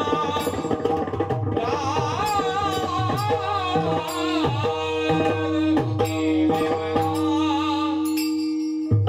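Pakhawaj drumming accompanying a Warkari devotional song: a singer draws out a long, wavering melodic phrase over a steady held note. Just before the end the held note stops and a strong drum stroke lands.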